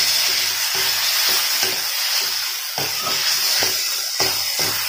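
Marinated chicken frying and sizzling in masala in a kadhai, being stirred, with repeated scrapes against the pan at irregular intervals.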